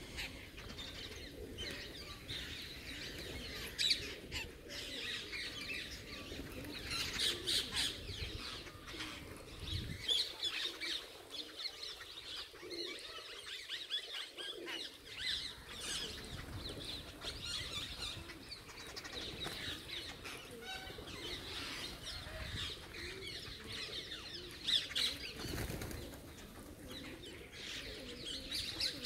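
A flock of birds: many short chirps and calls, with wings flapping again and again.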